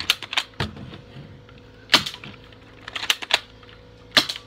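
Spring-loaded airsoft gun being cocked and fired, making several sharp snaps and clicks. The loudest comes about two seconds in, and a pair of clicks follows a second later.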